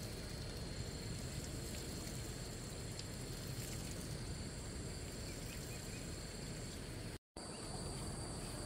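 Insects chirring in several steady high tones over an even background hiss, cutting out for a moment near the end.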